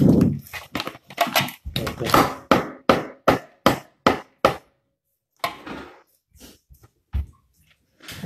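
Cooked lobster shell cracking as it is broken apart by hand: a quick run of sharp cracks for the first few seconds, then a few fainter ones near the end.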